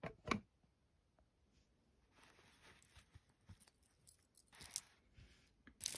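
Faint handling noise from a silver-tone metal pendant necklace with chain fringe being lifted off a velvet display bust. Two sharp clicks come at the start, then soft rustling, with a louder scraping rustle about four and a half seconds in.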